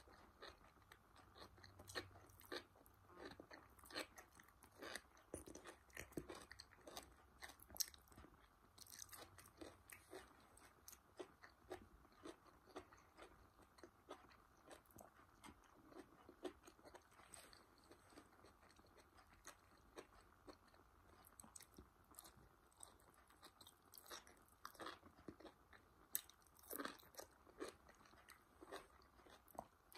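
Close-miked chewing of curried asparagus spears: irregular crisp crunches and wet mouth clicks, several a second, with bites at intervals.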